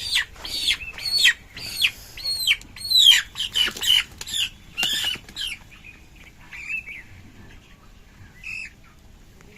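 Young colour-bird chickens squawking in distress as one is caught by hand: a rapid run of sharp, high cries, each falling in pitch, that thins out and fades after about six seconds.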